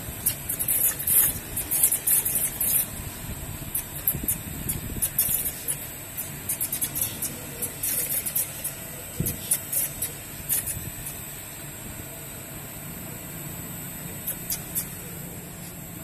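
Tiltable rotary drum quenching furnace in operation: a steady machine hum with a thin high whine, under irregular sharp crackling clicks that are busy for the first ten seconds or so and then thin out.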